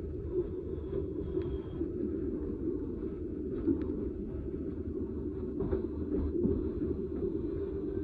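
Southeastern Class 395 electric train heard from inside the passenger cabin while running: a steady rumble of wheels on the track with a constant hum, and a few faint ticks.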